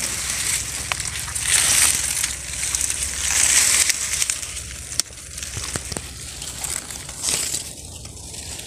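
Rustling and scraping of leaves and bark against a handheld phone pushed into a hollow tree trunk, in several swells, quieter after about five seconds.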